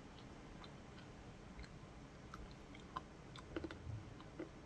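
Faint chewing of a piece of dark chocolate: scattered soft mouth clicks, a few of them louder around three to four seconds in.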